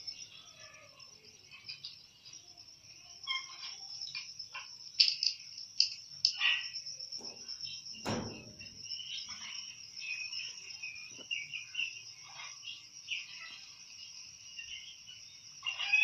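Crickets trilling steadily at a high pitch, with short bird chirps and small clicks over it, a sharper burst of chirps near the end. About halfway through comes one sharp tap of the parakeet's beak against the steel plate.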